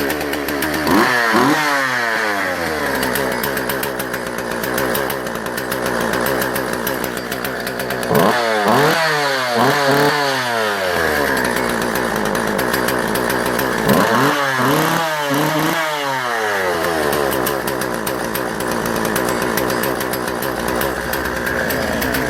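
Jonsered 2040 Turbo 40 cc two-stroke chainsaw running, blipped on the throttle in three bursts of quick revs that rise and fall in pitch. The bursts come about a second in, about eight seconds in and about fourteen seconds in, with steady running between them.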